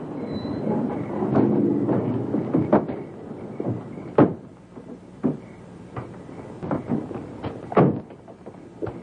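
A series of about ten irregular knocks and thuds over several seconds, the loudest about four seconds in. A low droning chord fades out under the first few.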